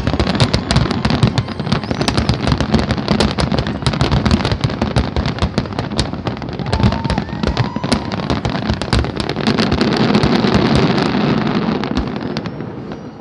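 Dense barrage of fireworks: many shell bursts and crackles overlapping without pause, with a few short whistles. The barrage thins out near the end.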